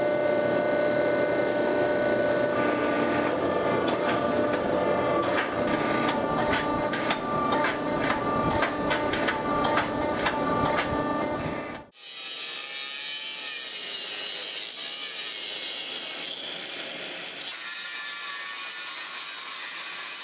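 Hydraulic forging press running, its motor and pump giving a steady hum with many sharp clicks as the hot billet is pressed. About twelve seconds in it cuts off abruptly, and an angle grinder's quieter wavering whine follows as the disc grinds the steel.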